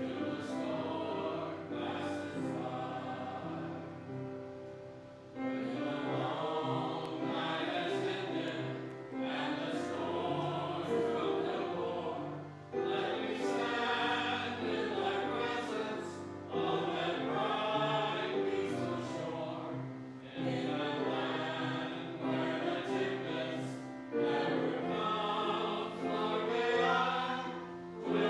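Church choir singing a song in phrases a few seconds long, over sustained low notes.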